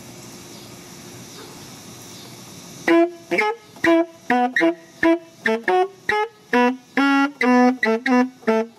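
A saxophone playing a quick run of short, separate notes, starting about three seconds in after a steady background hiss.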